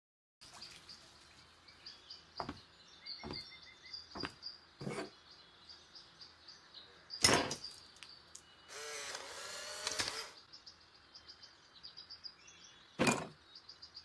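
Film sound effects: quick high chirps run throughout, broken by several sharp knocks, the loudest about seven and thirteen seconds in. A longer scraping, creaking sound comes around nine to ten seconds in.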